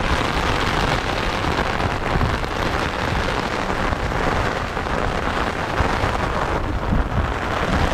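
Loud, steady rushing noise of wind buffeting the microphone and water hissing aboard a moving boat, cutting off suddenly near the end.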